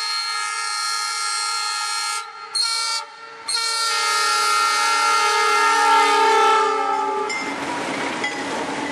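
Diesel locomotive's air horn sounding a chord: a long blast, a short one, then another long blast that grows louder and drops in pitch as the lead locomotive passes about seven seconds in. After that, the steady rumble of the passing locomotives and wheels on the rails.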